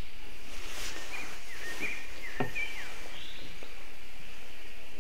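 Birds chirping in short, quick calls over a steady outdoor hiss, with a single click about halfway through.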